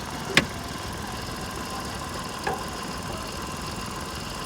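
Hyundai i10's 1.0-litre three-cylinder petrol engine idling steadily, heard from the open engine bay. A sharp click sounds once, under half a second in, and a fainter tick comes a couple of seconds later.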